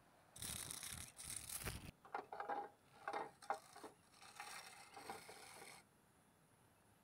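Clear plastic insect box being handled: a stretch of rustling, then a run of short scrapes of plastic on plastic, then more rustling that cuts off suddenly.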